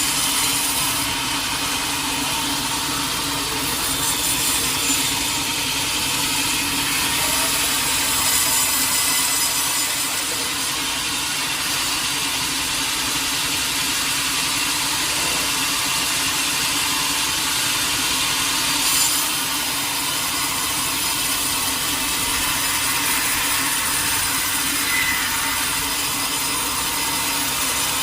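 Sawmill saw cutting steadily through a large teak log: a continuous hiss of the blade in the wood over a steady machine hum.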